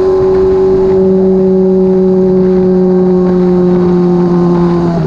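Honda CBR600RR sport bike's inline-four engine running at steady revs while riding, its pitch easing down slowly.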